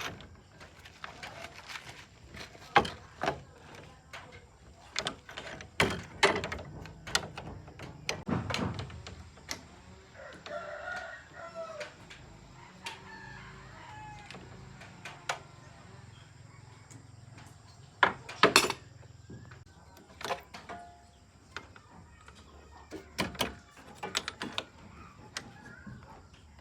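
Irregular sharp knocks and clicks, with a rooster crowing about ten seconds in.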